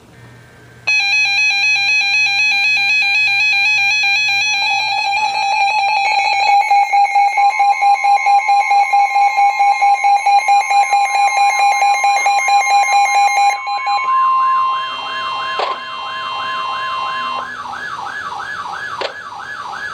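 Layered electronic alarm and siren tones. A warbling alarm tone starts about a second in, and a tone beeping about four times a second joins it alongside a steady tone. Near the end these give way to a fast, repeating up-and-down siren sweep.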